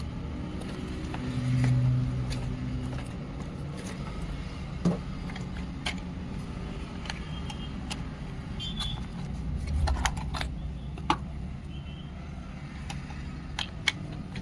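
Cardboard packaging and a plastic toy cement-mixer truck being handled: scattered clicks and knocks over a steady low hum. About a second in, a louder low humming tone lasts about a second and a half.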